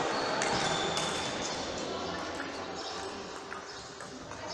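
Table tennis hall ambience: scattered sharp clicks of ping-pong balls striking bats and tables, over a steady background of voices.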